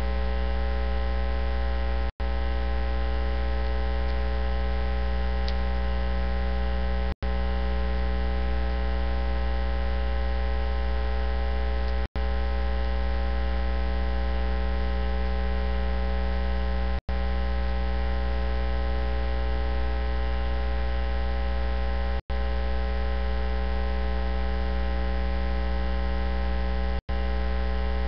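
Loud, unchanging electrical mains hum with a stack of steady overtones, cut by a brief silent dropout about every five seconds. It fills the sound track in place of the preacher's voice: an audio fault.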